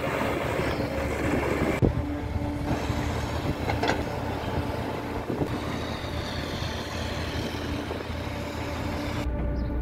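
Diesel engines of heavy earthmoving machinery (excavators and a backhoe loader) running steadily, a low engine drone with a few faint knocks. The sound shifts about two seconds in and again near the end as the shots change.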